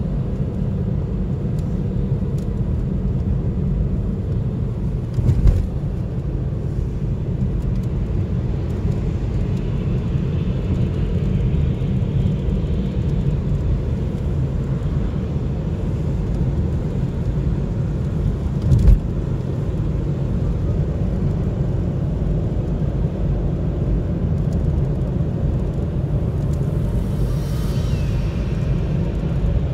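Car on the move, heard from inside the cabin: a steady low rumble of engine and road noise. Two short thumps come about five seconds in and again just before twenty seconds, and a brief hiss passes near the end.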